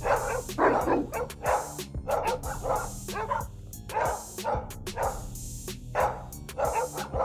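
Dogs fighting: a quick run of growls, snarls and barks, broken by short lulls.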